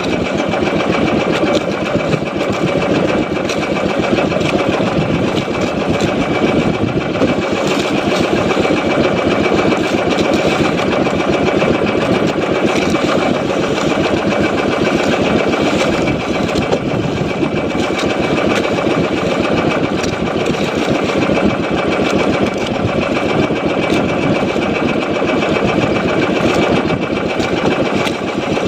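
Small fishing boat's engine running steadily at a constant speed, a dense, even drone with a faint high whine.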